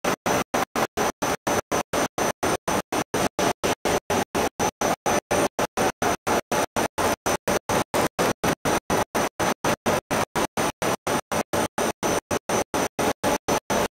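Machinery noise from a running PS foam sheet extrusion line, chopped into very regular pulses about four times a second with dead silence between them, an on-off stutter rather than a steady hum.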